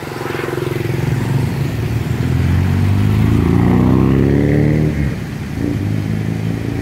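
A motor vehicle engine accelerating, its pitch rising steadily for about three seconds before dropping away about five seconds in.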